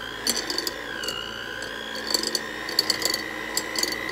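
Electric hand mixer running steadily, a whine with a slight dip in pitch about a second in, its beaters shredding cooked chicken breast in a glass bowl. Short clicks and clatter come now and then as the beaters knock the bowl.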